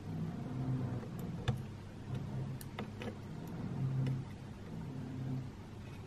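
A few small, sharp plastic clicks and taps as a fingertip handles the tiny hinged wardrobe door of a plastic Polly Pocket playset, over a steady low hum.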